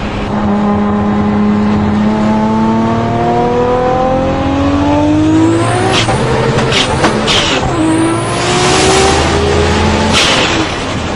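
A sports car's engine accelerating hard through the gears, its pitch rising in a long pull, then dropping at a shift about six seconds in and climbing again. Short bursts of hiss come around the shifts, about six to seven seconds in and again near ten seconds.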